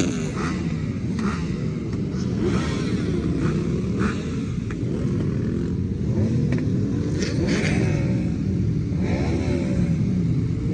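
Several motorcycles riding past one after another, their engine notes overlapping and rising and falling in pitch as each goes by.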